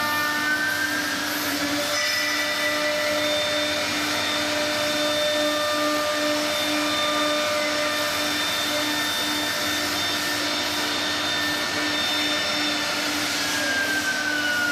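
CNC router spindle running with a steady whine over a noisy hiss. The pitch rises over the first two seconds as the spindle comes up to speed and falls near the end as it slows.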